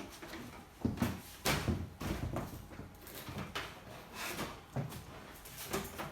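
Irregular knocks and clunks, about a dozen, from hands-on work installing an air conditioner.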